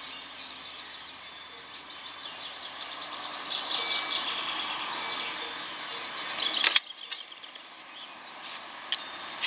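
Outdoor ambience with small birds chirping and twittering, busiest in the middle. About two-thirds of the way through, a sharp swishing burst, after which the background is suddenly quieter.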